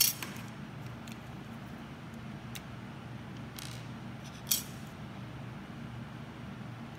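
Plastic parts of a Bandai Figure-rise Standard Ultraman B-Type model kit being handled: a few small clicks and knocks, the loudest at the very start and another about four and a half seconds in, over a low steady hum.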